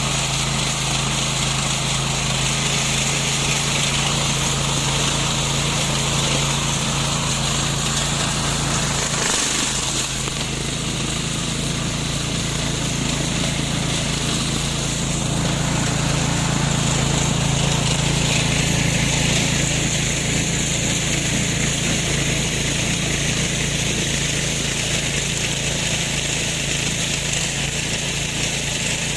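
Engine of a remote-controlled lawn mower running steadily at an even hum, with a brief dip about nine seconds in.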